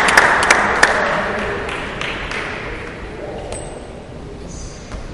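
Scattered applause in a large hall dying away after a table tennis point: the last few claps in the first second, then the fading noise of the room. A single short, high ping sounds about three and a half seconds in.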